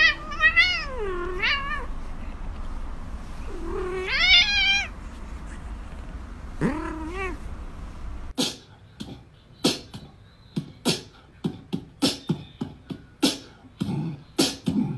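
A grey short-haired cat giving several long, wavering meows while being held and rubbed. About eight seconds in the meows stop and music made of sharp rhythmic clicks and beats takes over.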